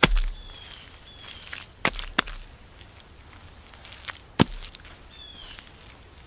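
Bare hands slapping and scooping wet clay mud: sharp wet slaps with a dull thud, the loudest at the start, a quick pair about two seconds in and another just after four seconds, with softer squelching scrapes between.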